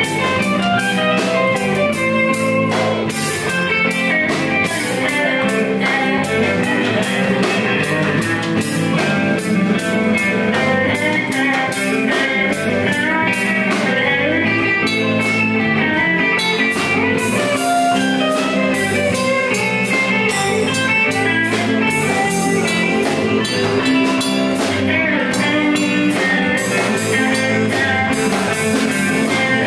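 Live rock band playing an instrumental passage, led by a Stratocaster-style electric guitar over bass and a drum kit with steady cymbal beats, and no singing.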